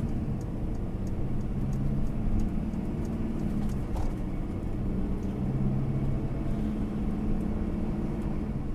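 Motorhome on the move: its engine runs steadily with road rumble, as heard from inside the cab, with faint light ticks and rattles over it.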